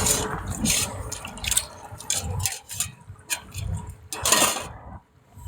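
Cookware and utensils clattering: a run of irregular knocks and scrapes, with the loudest clatter about four seconds in.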